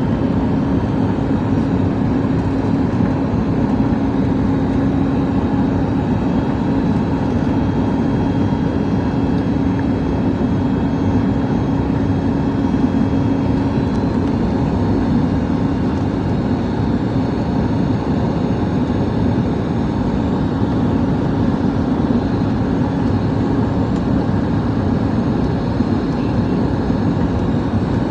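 Steady in-flight cabin noise of a Boeing 737 MAX on approach: the drone of its CFM LEAP-1B engines and the rush of air over the fuselage. A low steady hum sits in it and drops away about halfway through.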